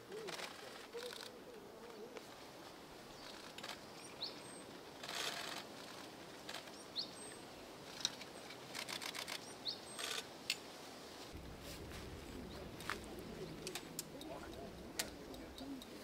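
Camera shutter firing in quick bursts of rapid clicks a few seconds apart, with several short, high single-note bird calls in between. A low rumble comes in about two-thirds of the way through.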